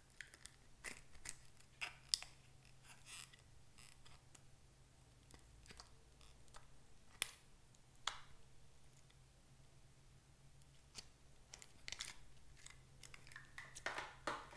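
Scattered light clicks of a plastic toy egg capsule being opened and handled, and soft sticky crackles of fingers scooping slime out of it, with a louder crackle near the end.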